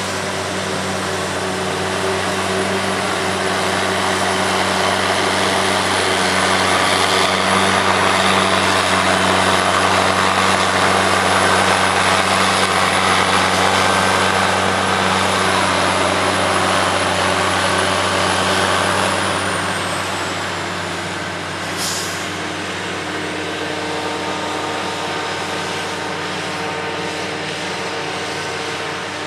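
Self-propelled forage harvester chopping whole-crop silage, with a tractor and silage trailer running alongside, their engines droning steadily. The sound swells in the middle as they pass. A high whine falls in pitch about two-thirds through, and there is one sharp tick about three-quarters through.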